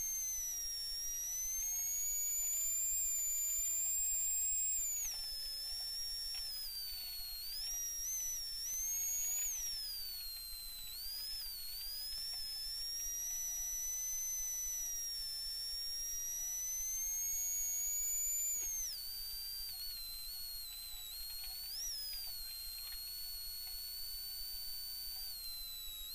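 High electrical whine from a faulty, loose audio cable, sliding up and down in pitch with the rally car's engine revs and dropping sharply several times, in place of the engine's own sound.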